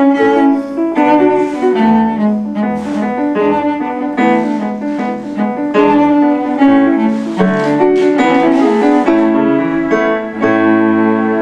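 Cello and Kawai ES7 digital piano playing a classical duet, settling into a long held chord near the end.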